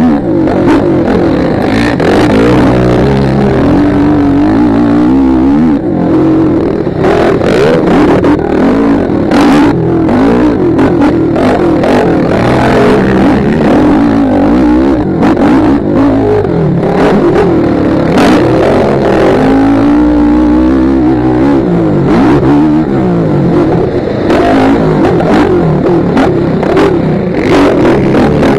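Motocross dirt bike engine revving hard and dropping back again and again, heard up close from the rider's helmet, with frequent short knocks as the bike rides over the rough track.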